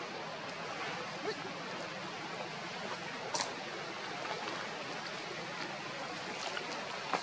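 Steady rushing background noise with no pitch, broken by three brief sharp clicks, about one, three and a half, and seven seconds in.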